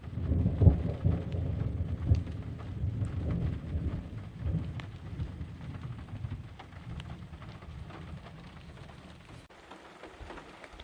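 Thunder: a deep rumble that starts suddenly, is loudest in the first two seconds with a couple of sharper cracks, then rolls on and fades away over several seconds, with rain falling throughout.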